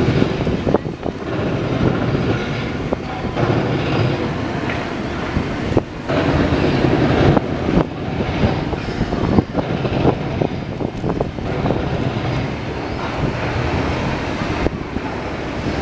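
Busy outdoor city-square ambience: a loud, steady rumbling din like passing traffic, with many short clicks and knocks scattered through it.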